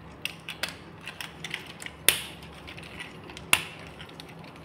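Plastic parts of a Transformers Studio Series Optimus Prime action figure clicking and tapping as they are handled and pegged together, with two sharper snaps about two seconds and three and a half seconds in.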